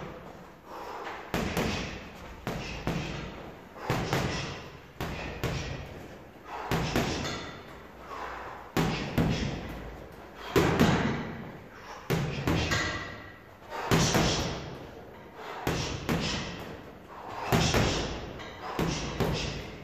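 Boxing gloves punching a heavy bag in short combinations of jabs and straights, thuds coming in clusters roughly once a second, some in quick doubles.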